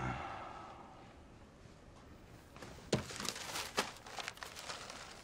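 A soft thump at the start, then, from about halfway, quiet rustling of paper with small clicks and knocks as a letter is handled on a desk.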